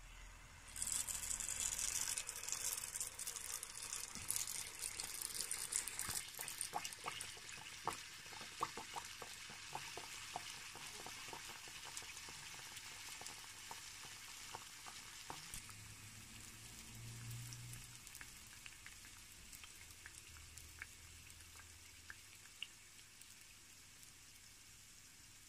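Handesh batter of rice flour and date molasses hitting hot oil in a pan, sizzling loudly about a second in, then slowly dying down into a steadier, quieter fry with scattered crackles and pops.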